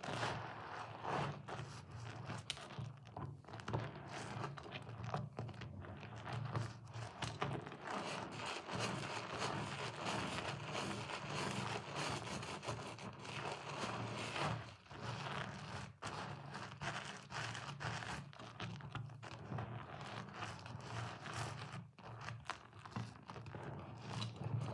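Wet, soap-soaked sponge and mushy white soap squishing as hands squeeze and knead them in thick lather, an unbroken run of small crackles and squelches.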